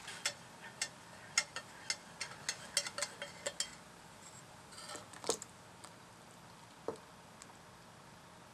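A quick, irregular run of light metallic clicks for the first few seconds, then a short hiss and a sharp clink about halfway through, with one more clink later. The clinks are a steel spoon and pitcher being handled over a saucepan of fig jelly mixture.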